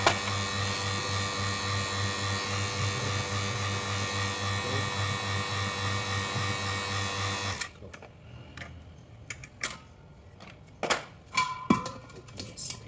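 An electric refrigeration vacuum pump runs with a steady buzzing hum, evacuating the rebuilt refrigerator system before the refrigerant charge. It cuts off suddenly about seven and a half seconds in, followed by a few clicks and knocks of handling gauges and tools and a brief beep.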